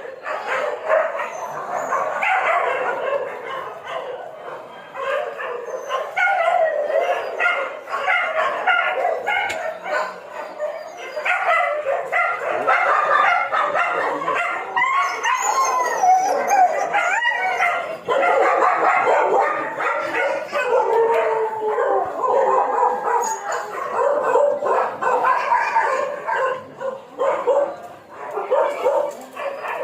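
Dog barking fiercely and almost without pause, the barks mixed with yelps and howling cries.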